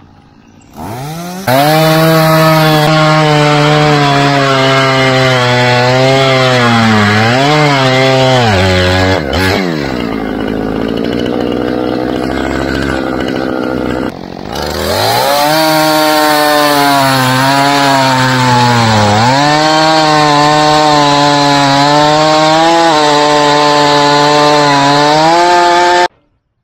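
Chainsaw revving up and cutting through pine logs at full throttle, its pitch sagging each time the chain loads in the wood. It cuts off suddenly near the end.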